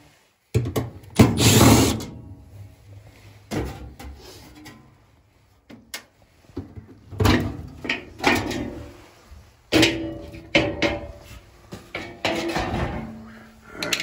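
Sheet-metal access panels of a gas furnace being pulled off and handled: a run of metallic clanks, knocks and rattles, some ringing briefly, the loudest about a second in.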